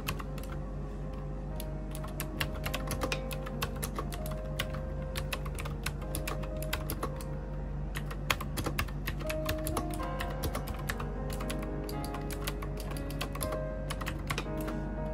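Fast, irregular clacking of keys being typed on a retro-style keyboard with round typewriter-style keycaps. Soft background music with a slow melody plays underneath.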